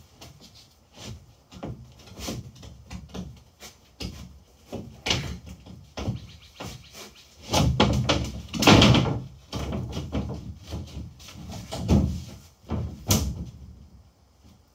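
Irregular wooden knocks, bumps and scrapes of plywood being handled inside a plywood boat hull, with a loud run of clattering about eight seconds in and a sharp knock near the end.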